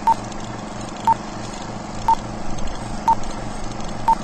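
Film leader countdown beeps: a short, high beep once a second, five in all, over a steady hum and hiss.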